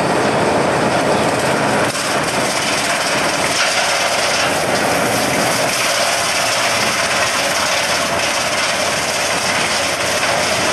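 Wood chipper running steadily, its engine and cutter making a loud, even mechanical noise.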